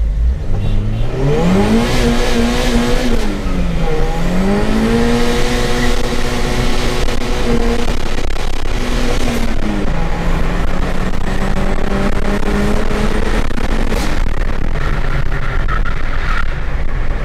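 Toyota 3S-GTE turbocharged 2.0-litre four-cylinder, heard from inside the cabin, pulling hard under acceleration. The revs climb steeply, drop at about four seconds and again at about ten seconds as it changes gear, then settle to a steady run.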